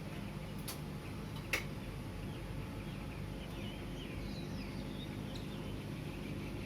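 Steady low rumble of city traffic, with a sharp click about a second and a half in. Small birds chirping and twittering through the middle.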